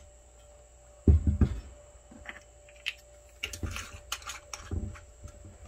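Handling noises: a dull low thump about a second in, then a run of light clicks and knocks.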